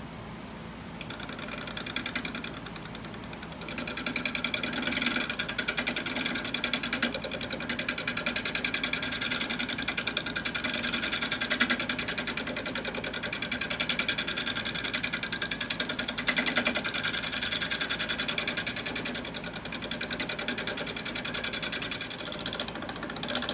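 Wood lathe spinning a natural-edge pear bowl at 1,000 RPM. About a second in, a freshly sharpened bowl gouge starts skimming the outside of the bowl, and the cut runs as a rapid, even patter over the lathe's hum, with a brief break about three seconds in.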